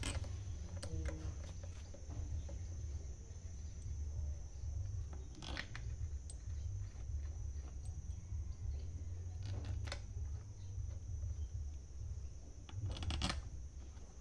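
A few light clicks and knocks of bolts and metal parts being handled on a hydraulic pump, the clearest about five seconds in and near the end, over a steady low rumble.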